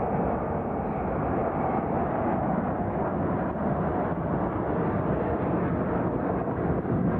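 Concorde's four Olympus 593 turbojets heard from the ground as the airliner flies past overhead: steady, loud jet noise that grows a little louder near the end.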